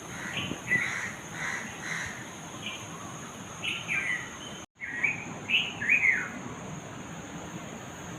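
Birds calling at dawn: short chirps and quick downward-slurred notes from several birds, coming irregularly, over a steady thin high-pitched tone. There is a brief break in the sound about halfway through.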